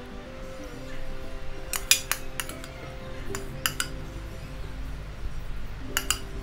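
Metal utensil clinking against a steel pan as noodles are served out of it, in short clusters of clinks about two seconds in, around three and a half seconds in and near the end. Soft background music plays underneath.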